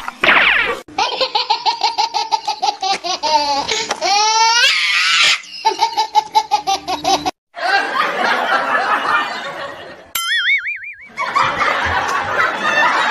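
Canned laughter sound effects: a rhythmic belly laugh, ha-ha-ha at about six a second, then a crowd laughing. Just after 10 s the laughter stops for about a second while a high, wobbling cartoon sound effect plays.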